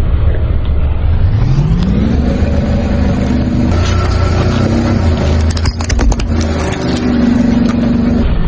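Car engine revving up over about a second and then running steadily under a low rumble. About two-thirds of the way in there is a quick cluster of sharp cracks and crunches, typical of brittle objects breaking under a tyre.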